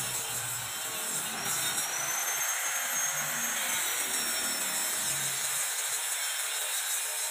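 Handheld angle grinder grinding a spring-steel workpiece, cut from an old car leaf spring, with a steady hissing grind. Its high whine rises about a second and a half in and drops back after the middle as the load on the disc changes.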